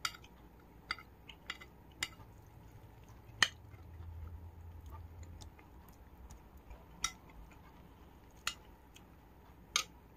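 Metal spoon clinking against a bowl while eating: about eight sharp, separate clinks, the loudest about three and a half seconds in.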